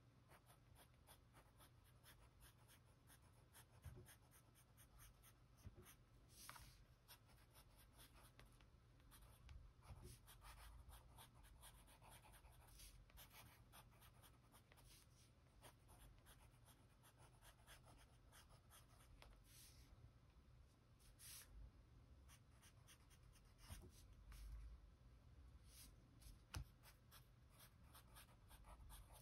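Faint scratching of a pencil writing by hand on sketchbook paper, in quick short strokes with a few slightly louder ones.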